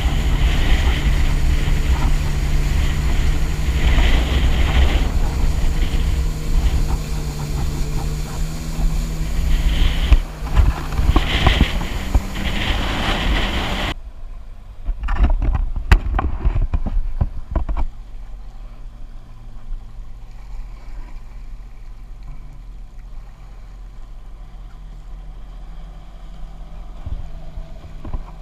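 Yamaha WaveRunner jet ski running under way, its engine drone mixed with wind on the microphone and water noise. About halfway through the sound abruptly turns quieter and muffled, with a few sharp knocks, then settles to a steady low engine hum.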